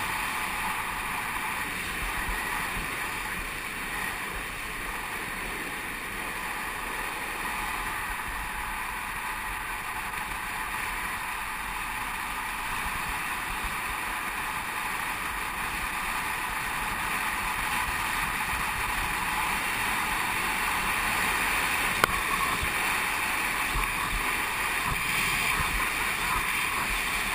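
Steady rushing noise of wind buffeting an action camera's microphone during a fast downhill longboard run, mixed with the rolling hum of urethane wheels on asphalt. It grows a little louder in the second half, and there is one sharp click about three-quarters of the way through.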